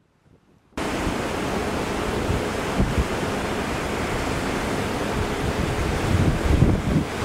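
Wind buffeting the microphone over the wash of sea surf. It cuts in abruptly under a second in, out of near silence, and then runs steadily with gusty low rumbles.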